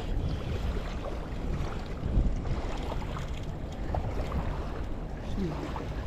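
Wind rumbling on the microphone over the wash of water on a rocky shoreline, with faint scattered ticks.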